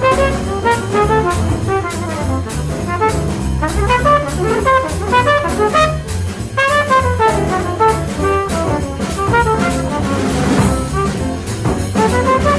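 Jazz sextet recording: a trumpet playing fast, improvised bebop runs over walking bass and drums with steady ride cymbal, with a cymbal crash about ten seconds in.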